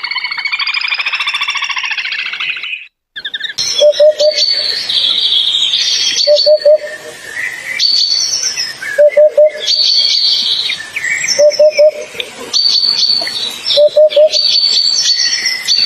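Birds calling: a dense, rapidly pulsing call for about three seconds, a brief break, then a phrase of chirps repeated at an even spacing of about every two and a half seconds, each time with a quick run of three or four lower notes.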